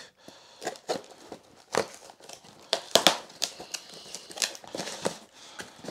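A small cardboard box being opened by hand: packing tape slit with a small blade, then the tape and flaps torn and pulled back, giving irregular rustling, scraping and tearing with the sharpest snap about three seconds in.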